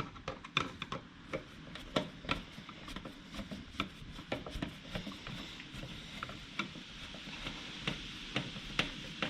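Screws being turned in by hand with a tool to fasten a motorcycle tail light: a string of small, irregular clicks and light scraping. The screws are going in a little snug.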